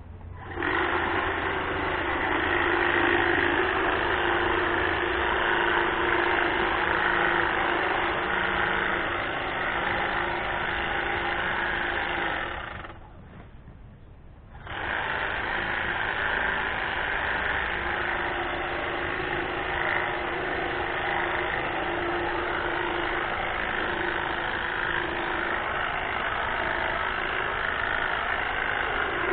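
Greenworks battery-powered hedge trimmer running, a steady buzz from its electric motor and reciprocating blades. It starts about half a second in, stops for about two seconds a little before the middle, then runs again.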